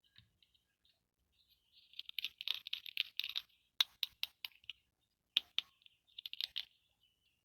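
Small hard plastic toy pieces and packaging being handled: a run of light crackling ticks, then groups of sharp clicks.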